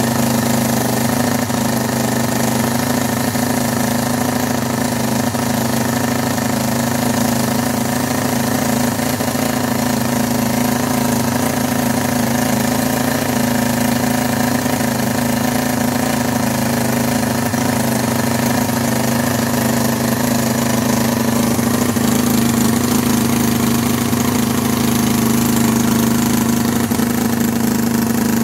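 Cison L4-175 inline four-cylinder model engine running steadily on nitro glow fuel.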